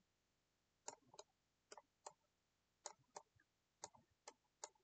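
Faint computer mouse-button clicks, about eight short sharp clicks at irregular intervals of roughly a half second to a second, some in pairs, as the mouse is clicked repeatedly to dab paint.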